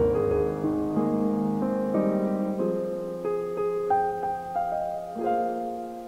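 Piano music: a melody of single notes over held lower notes.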